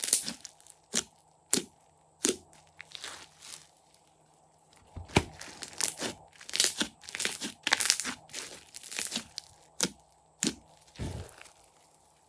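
Crunchy slime being pressed and worked by hand, giving a string of sharp crackles and snaps, with a short lull about four seconds in.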